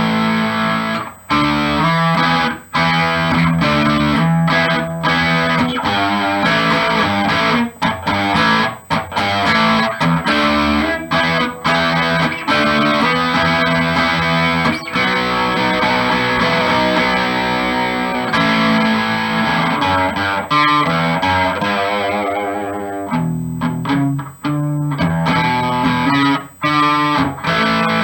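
Amplified electric guitar, a G&L Legacy Tribute with a Seymour Duncan Little '59 mini humbucker in the bridge position, played in chords and short riffs with brief breaks between phrases and a light distortion. The treble falls away for a few seconds about 22 seconds in.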